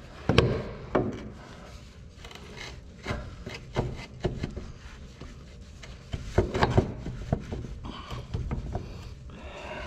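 Metal parts of a hydraulic cylinder knocking and scraping as a part is pushed and worked into its bore, catching on something instead of sliding home. Several sharp knocks, the loudest near the start and again about two-thirds of the way through.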